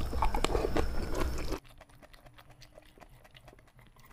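Close-up, wet chewing of boiled papaya stem coated in spicy peanut sauce, with small crunches and mouth clicks. About a second and a half in it stops abruptly, and the rest is almost silent apart from faint ticks.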